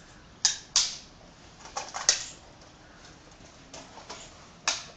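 Sharp metal clicks and clacks of an INSAS rifle being handled and unloaded, about eight in all, coming singly and in pairs a fraction of a second to a second or so apart.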